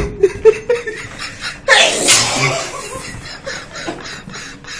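A man gives one loud, explosive sneeze about two seconds in, part of a sneezing fit brought on by kalanchoe juice put in his nose. Another man laughs in short bursts before and after it.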